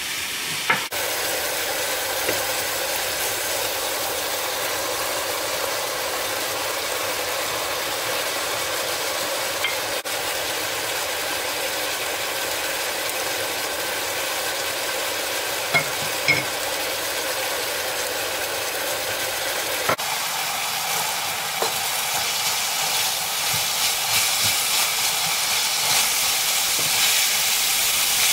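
Minced meat sizzling steadily as it fries in a pan. A couple of sharp knife clicks sound near the start. From about two-thirds of the way through the hiss brightens and a wooden spatula stirs the meat, adding irregular scrapes and ticks.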